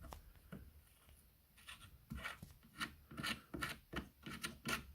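A series of short rubbing or scraping strokes, about two a second, starting about one and a half seconds in.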